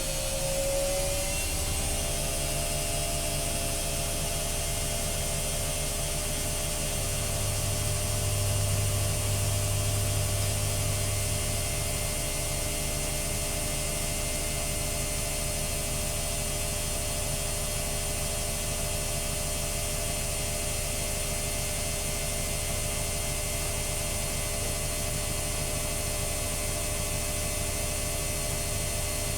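AEG Öko-Lavamat washing machine spinning at high speed. The motor's whine rises a little in pitch during the first second, then holds steady over a constant low hum, which swells briefly between about 7 and 12 seconds in.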